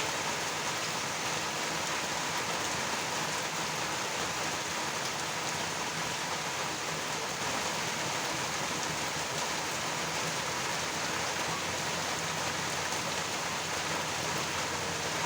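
Steady rain falling, an even hiss that holds level throughout, with no thunder.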